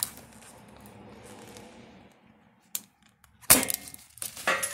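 Metal ratchet strap being released: faint handling noise, a small click, then a single sharp metallic snap about three and a half seconds in as the ratchet lets go of the strap's tension, followed by light metal clattering and clinking near the end.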